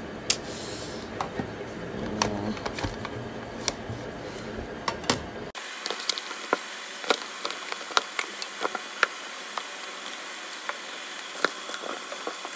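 Plastic makeup palette cases and cardboard boxes clicking and tapping as they are handled and stacked, with the clicks coming several times a second in the second half.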